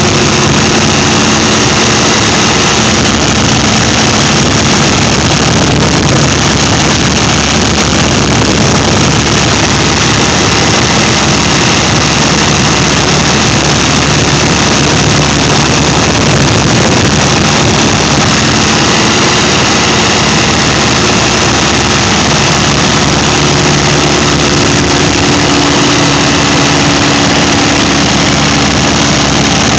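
Light aircraft's piston engine and propeller running steadily in flight, heard from inside the cabin as a loud, even drone.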